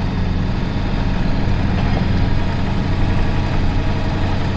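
Converted ambulance's engine running steadily at low revs, heard from inside the cab as it edges slowly along a snowy road, with a constant low hum and road noise.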